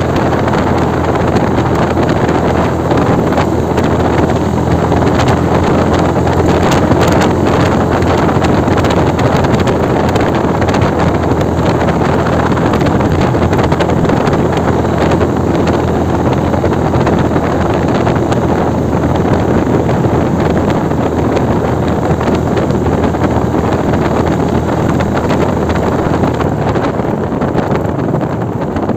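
Steady wind rush on the microphone while riding a small motorcycle at road speed, with the engine running steadily underneath. The level dips slightly near the end.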